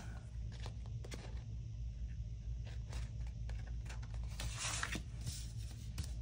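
Scissors snipping through sticker paper: a run of light clicks and a few short rasping cuts, over a steady low hum.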